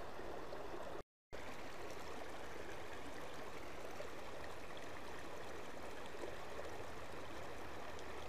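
Steady rush of water running over rocks in a small drainage channel, cutting out for a split second about a second in.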